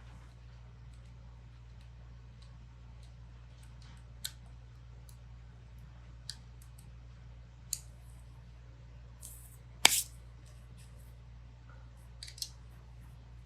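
Scattered small clicks and taps of parts and tools being handled, a few seconds apart, with the sharpest click about ten seconds in and a quick cluster near the end, over a steady low hum.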